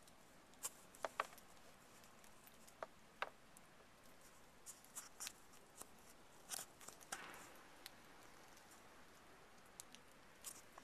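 Near silence, with a dozen or so faint, short clicks and ticks scattered irregularly through it.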